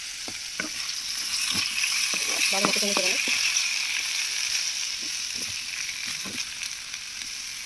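Diced potatoes sizzling steadily in hot oil in a kadai, with a metal ladle clicking and scraping against the pan now and then as they are stirred.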